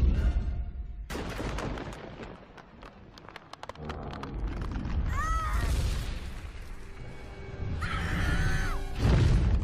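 The Universal stock monster roar, dubbed in as a dinosaur's roar, sounds twice as a shrieking cry that rises and falls, about five seconds in and again near the end. Before it comes a run of crashes and smashing impacts, all over a dramatic orchestral film score.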